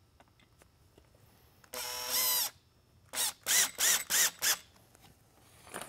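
Cordless drill/driver driving the screws that hold the beacon's dome to its base: one short run of motor whine about two seconds in, then about five quick trigger pulses, the pitch rising and falling with each one.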